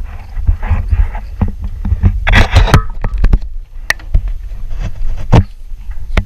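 Wind buffeting the camera microphone on a small fishing boat, a loud uneven low rumble, with several sharp knocks from gear against the hull and a short scraping rattle about two seconds in.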